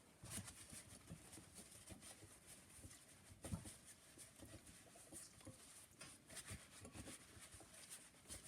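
Faint handling noises of light clicks and taps, with one louder knock about three and a half seconds in.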